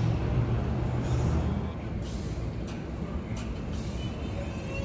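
R188 subway train standing with its doors closed: a steady low hum of its equipment, with a few short hisses of air that are typical of the air brakes releasing. Near the end the rising whine of the traction motors begins as the train starts to pull away.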